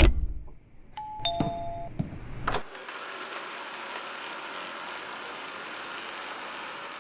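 A short two-note falling electronic beep and a few clicks, then a steady even hiss from about three seconds in: a Eufy BoostIQ RoboVac 11S robot vacuum sounding its start tone and running.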